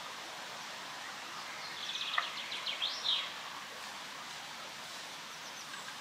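Spring forest ambience: a steady hiss of wind in the leaves, with one songbird singing a quick phrase of high rapid notes and sweeping whistles about two seconds in, lasting about a second and a half. A sharp click, the loudest sound, falls in the middle of the phrase.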